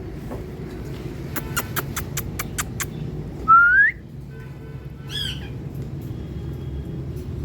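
Pet parrot calling: a run of about seven sharp clicks, then a loud rising whistle, and about a second later a shorter squawking call, over a steady low hum.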